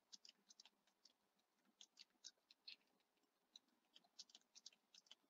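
Near silence with faint, irregular clicking of a computer mouse and keyboard, a dozen or so small clicks scattered unevenly.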